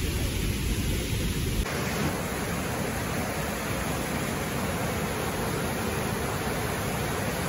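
Fast-flowing river rushing over rocks, a steady, even roar of white water. For the first second and a half a heavier low rumble lies under it.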